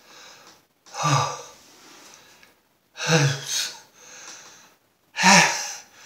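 A man sneezing in a fit, mouth uncovered: three loud sneezes about two seconds apart, with gasping breaths between them.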